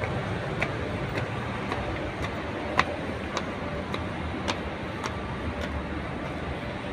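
Footsteps climbing outdoor stone steps, a sharp tap about every half second, over a steady rumble of city traffic.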